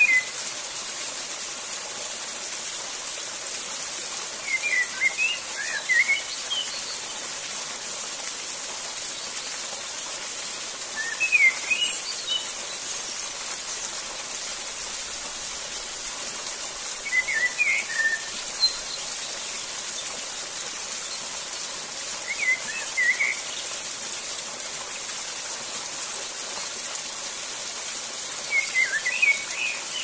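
Waterfall rushing steadily, with a small bird singing a short chirping phrase about every six seconds over it.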